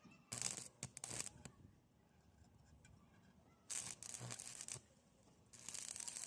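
Stick-welding arc crackling with a 6013 electrode in short runs: three bursts of about a second each, near the start, in the middle and at the end, broken by pauses where the arc is stopped.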